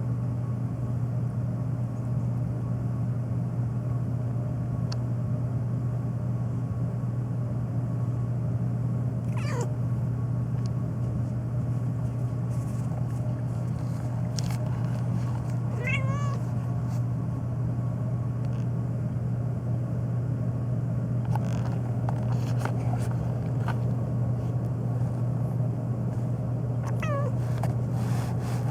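A domestic cat meowing three times, well spaced, each call falling in pitch, over a steady low hum, with a few faint clicks.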